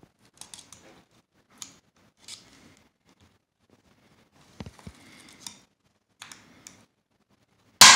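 Small metal clicks and scrapes of a hand tool working the lock pins out of a Honda differential carrier, in short scattered bursts. Near the end there is one loud, sharp metal clack.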